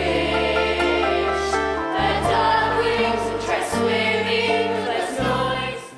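A young theatre cast singing in chorus over instrumental accompaniment with a steady bass line, the music dropping away near the end.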